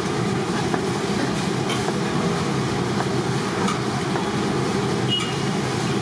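Steady low rumbling background noise of a busy food stall, with a few light ticks as a ladle touches the steamer pot and the batter cloth.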